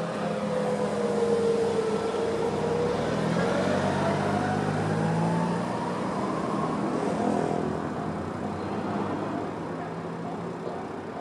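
A 211 series electric train passing over the level crossing. Its motor and gear whine rises in pitch as the train picks up speed, then the sound eases away.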